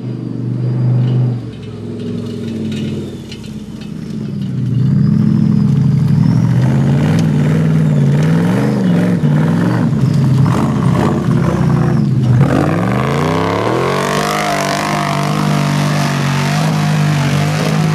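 Off-road 4x4 truck's engine revving up and down under load, getting louder about five seconds in. About twelve seconds in the revs drop and then sweep sharply back up, holding high to the end.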